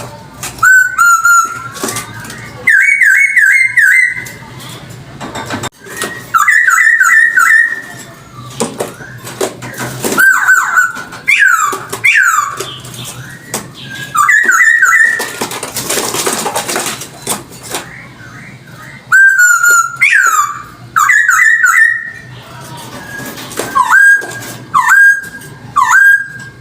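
Poksay hongkong (a laughingthrush) singing loud whistled phrases: quick runs of repeated notes alternating with single downward- and upward-slurred whistles. About two seconds of harsh, noisy sound come in the middle.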